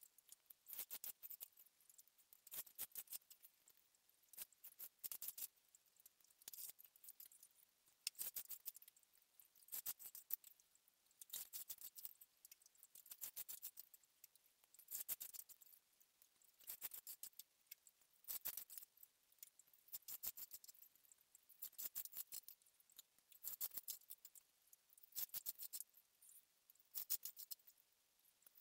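Faint scratchy crackling of a fine (2.5 mm) chair-cane strand rubbing through the woven cane seat as it is pulled, in short bursts about every one and a half to two seconds.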